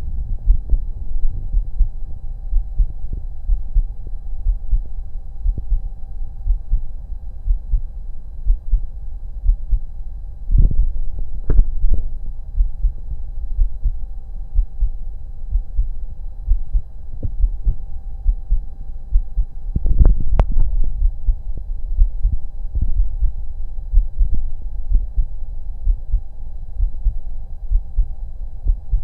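A human heartbeat heard through a stethoscope: a steady run of low, dull thumps under a faint steady hum. There are two louder sharp knocks, about a third and about two-thirds of the way through.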